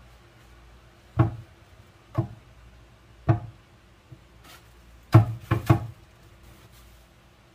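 Vegetables and a bag of dried mung beans set down one at a time on a hard, heavy wooden chopping board: six sharp knocks, single ones about a second apart, then three in quick succession near the end.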